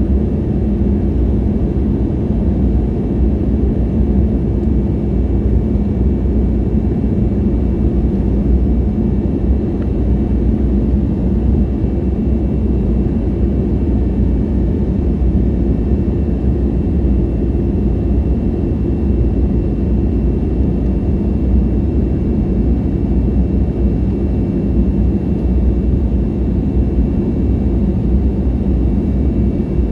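Airbus A320neo cabin noise heard from a window seat: a steady, unchanging low rumble of engines and airflow with a constant hum, as the airliner runs at high thrust.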